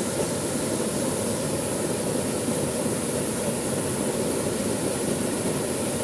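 Small waterfall pouring into a rock pool: a steady rush of falling water, heaviest in its low rumble.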